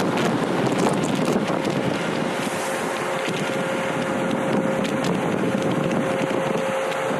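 Strong wind and sea noise aboard a ship rolling in heavy weather, with wind buffeting the microphone. A steady, thin tone joins the rush about two seconds in and holds.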